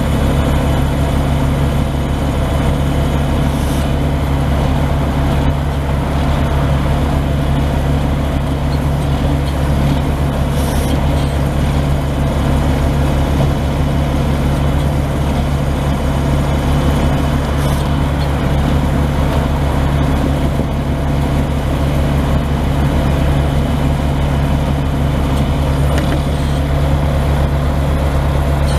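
A 1989 Ford L9000 truck's Cummins L10 10-litre inline-six turbo diesel idling steadily.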